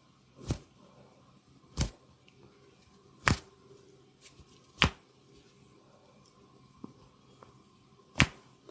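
Five sharp smacking strikes of a massage on the body, about a second and a half apart, with a longer pause before the last one.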